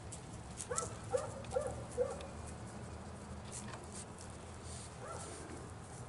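A dog barking: four short, quick barks about a second in, then a single bark around five seconds in.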